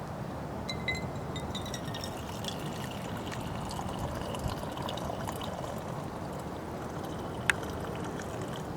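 Water pouring or trickling, with a single sharp click about seven and a half seconds in.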